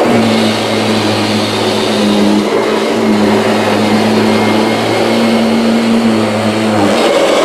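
Kirby G6 upright vacuum cleaner running on a rug with its stiff brush roll: a loud, steady motor hum that shifts slightly in pitch a few times and briefly changes near the start and near the end.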